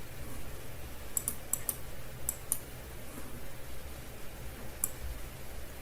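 Clicking at a computer: about seven short, sharp clicks, mostly in quick pairs between one and three seconds in and one more near the end, over a faint steady low hum.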